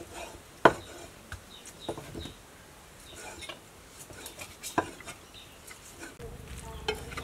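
A cleaver knocking on a wooden chopping board as beef is sliced, with light clinks of knives and bowls; a few sharp knocks, the loudest under a second in.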